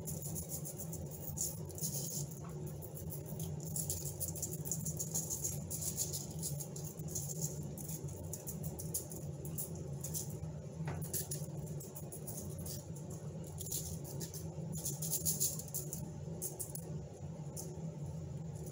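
Seasoning salt shaken from a plastic shaker bottle over raw fish fillets on aluminium foil: the granules rattle in the bottle and scatter onto the fish in repeated bursts of shaking, the loudest about fifteen seconds in.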